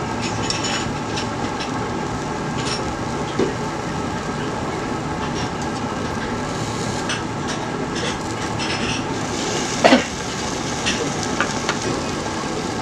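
Meat sizzling and spattering on a yakiniku grill: a steady crackle with scattered sharp pops and one louder knock about ten seconds in.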